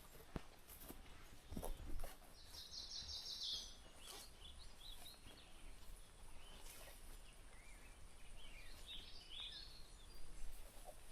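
Quiet outdoor ambience with birds calling: a fast trill a few seconds in and scattered high chirps near the end, with a few soft knocks near the start.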